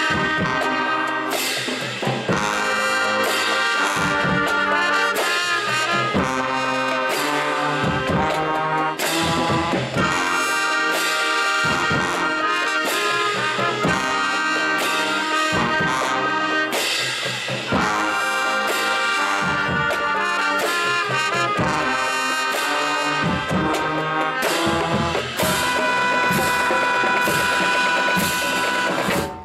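College marching band playing loud brass-heavy music, with trumpets and trombones over regular drum hits. The music stops abruptly at the very end.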